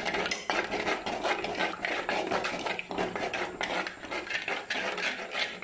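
Wooden-handled ladle scraping round the bottom of an unglazed clay pot as a thick, oily sauce is stirred, in a steady run of rasping strokes about two or three a second.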